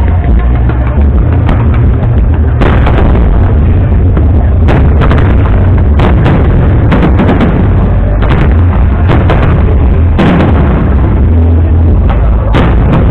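Aerial fireworks bursting, a rapid, irregular run of sharp bangs over a constant heavy low rumble.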